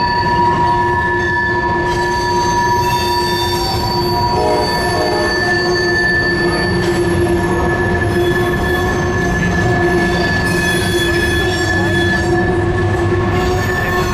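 BNSF covered grain hopper cars of a freight train rolling across a steel railroad bridge, their steel wheels squealing in several steady high tones over a continuous low rumble.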